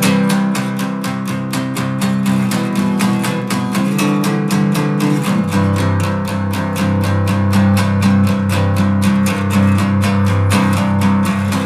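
Background music: guitar strummed in an even, fast rhythm of about four strokes a second.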